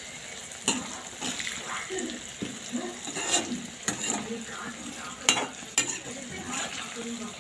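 Chicken pieces sizzling in hot mustard oil in a pan, stirred with a spatula that scrapes and clinks sharply against the pan several times.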